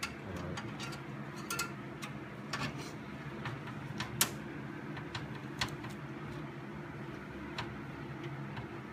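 Scattered light clicks and taps from metal computer-case parts being handled, with the loudest click about four seconds in, over a steady low hum.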